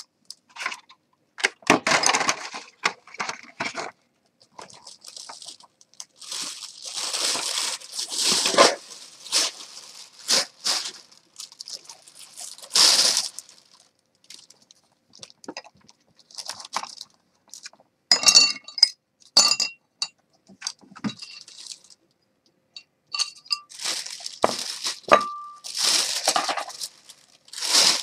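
Plastic bag rustling and crinkling in irregular bursts while things are cleared off a table, mixed with clinks and knocks of dishes and bottles. A few clinks ring briefly about two-thirds of the way in.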